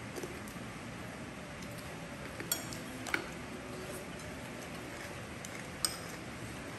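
Tableware clinking as people eat from ceramic plates: three sharp clinks, about two and a half seconds in, again half a second later, and near the end, over a faint steady room background.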